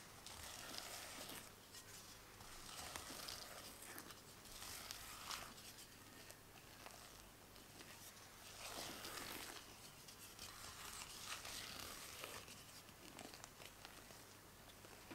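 Quiet strokes of a silicone spatula folding and pressing thick macaron batter against the side of a glass bowl, one every second or two. This is macaronage: pressing the air out of the batter, which is still too stiff and not yet ready.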